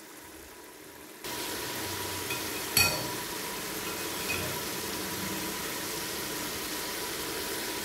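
Kofta curry simmering and sizzling in a pot, a steady hiss that comes in suddenly about a second in, with a single sharp click a couple of seconds later.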